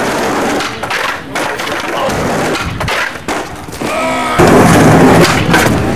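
Skateboard rolling on concrete with sharp clacks and knocks of the board and wheels. A little past the middle a group of people bursts into loud shouting and yelling.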